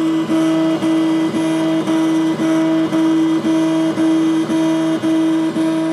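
Tiertime Up Mini 2 3D printer's extruder stepper motor running to feed filament into the print head: a loud, steady hum broken by a brief dip about twice a second. It is being run to check whether the drive still grips the filament.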